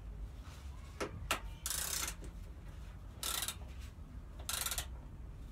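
Ratchet spanner clicking in three short strokes, with a couple of sharp metal knocks just before the first, as a bolt on a motorbike's exhaust can is being loosened.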